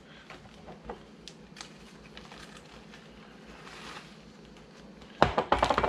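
Zip-top plastic bags being handled: a few faint ticks and rustles, then a short burst of loud plastic crinkling about five seconds in.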